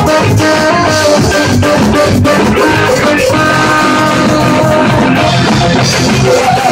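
A ska band playing live: saxophone melody over electric guitar and a drum kit, loud and continuous.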